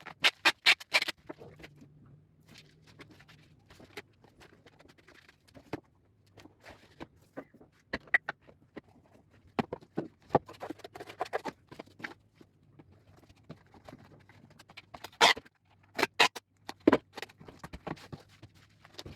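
Parcels being wrapped by hand: packaging rustles and crinkles, with sharp taps and clicks and short rips of packing tape. There is a faint low hum underneath.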